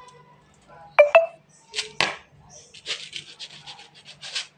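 Rice being washed in a plastic basin at a stainless-steel sink. Two sharp knocks that ring briefly come about a second in, then a quick run of swishing and splashing water.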